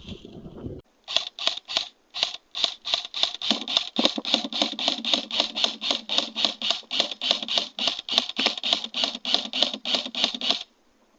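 An airsoft gun clicking in a rapid, even series of about four sharp clicks a second for nearly ten seconds, which then stop abruptly.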